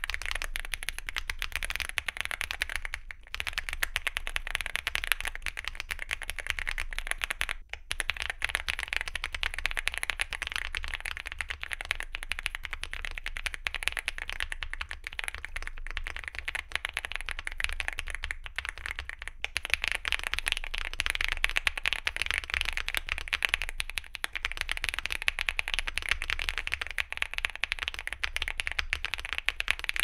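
Fast continuous typing on a Weikav Lucky65 mechanical keyboard with a PC plate, full foam and double-shot PBT keycaps, fitted first with Gateron Beer tactile switches and, about halfway through, with Gateron Baby Kangaroo 2.0 tactile switches. An almost unbroken stream of keystroke clacks.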